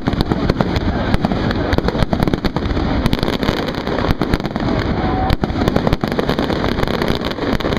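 Fireworks display in a dense barrage: shell bursts and crackling, with sharp bangs several times a second and no let-up.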